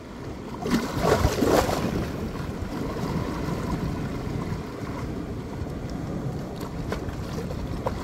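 Small waves washing in over the rocks of a tide pool: a splashing surge about a second in, then a steady wash of water, with a couple of small plinks near the end.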